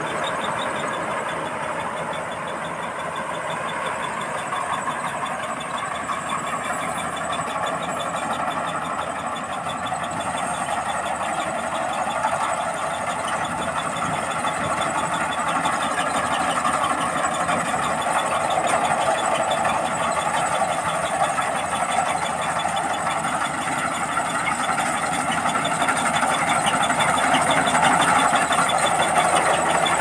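Tracked rice combine harvester running under load while cutting and threshing standing rice: a steady engine and machinery drone that grows gradually louder as the machine comes closer.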